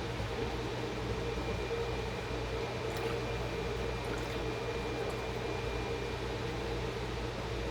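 Steady, even hum of a running motor-driven appliance such as a fan, unchanging throughout, with a few faint clicks about three to four seconds in.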